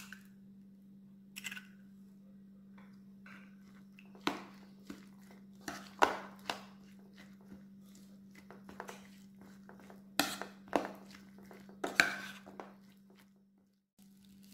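Metal spoon stirring and mashing sweetcorn kernels and egg in a ceramic bowl, with irregular scrapes and clinks against the bowl, the sharpest a few seconds apart. A steady low hum runs underneath and cuts off near the end.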